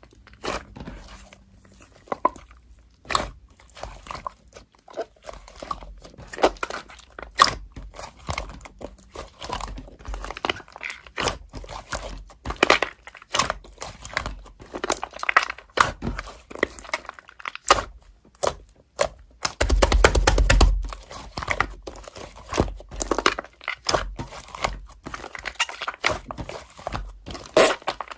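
Slime being squeezed and worked by hand: irregular sticky clicks, crackles and pops, with one denser, louder squelching stretch about twenty seconds in.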